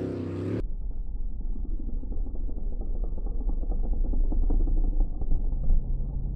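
Sprint jet boat's engine running. A bright engine note cuts off abruptly just over half a second in and gives way to a muffled, rough low rumble. A steadier engine note comes in near the end.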